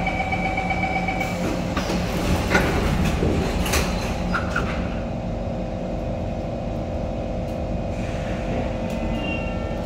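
Kawasaki Heavy Industries C151 MRT train at an underground station platform: a steady hum with several held tones. A few knocks and rattles come about two to four seconds in.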